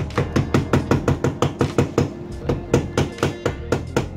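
Rubber mallet rapidly tapping a cold chisel, about five blows a second, driving it against a stubborn rivet on the piano hinge of a fibreglass cockpit locker lid.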